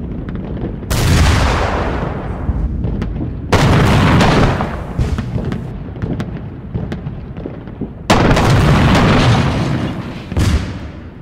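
Heavy artillery booms: four big blasts a few seconds apart, each rolling off slowly, over a continuous low rumble.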